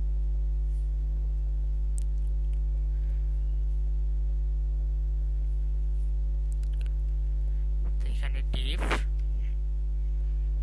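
Steady electrical mains hum with its overtones on the recording line, with a few faint keyboard clicks as code is typed.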